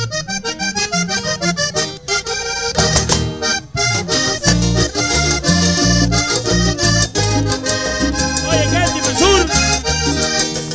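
Live vallenato band playing an instrumental introduction led by a button accordion in quick melodic runs, with the bass and rhythm coming in fully about three seconds in.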